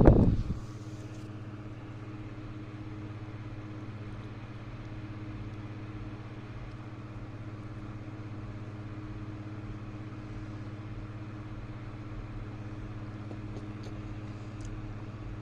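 Music cuts off about half a second in, leaving a steady low machine hum.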